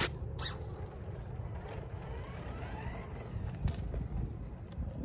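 Radio-controlled car driving across asphalt, its motor whine rising in pitch as it accelerates, over a steady low rumble. Two sharp clicks near the start.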